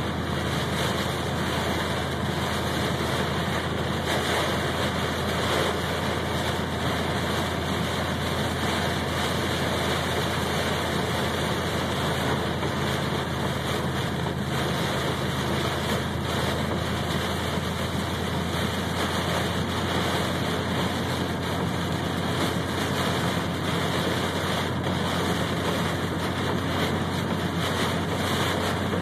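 Heavy rain on a car and tyres hissing on a water-covered highway, heard from inside the cabin over a steady low engine drone.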